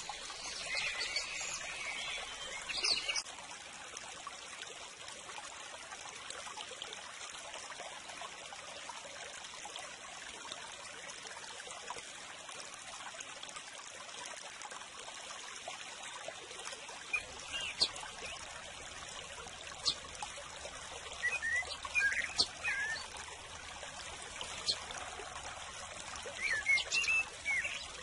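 Running water of a stream, a steady rush, with small birds chirping in short bursts near the start and several times in the second half.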